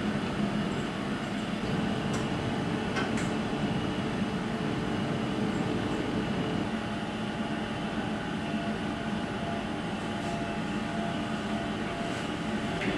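Steady machine hum and rumble, with a couple of faint clicks about two and three seconds in.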